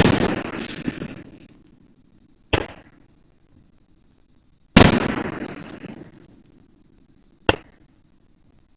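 Aerial fireworks shells bursting: four bangs about two to three seconds apart. The first and third are loud and trail off over a second or more, while the second and fourth are short and sharp.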